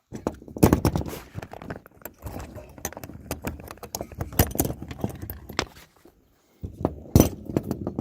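Metal return springs and fittings of an automatic greenhouse window opener clinking and rattling as they are taken off by hand: many quick clicks, with a short pause about six seconds in.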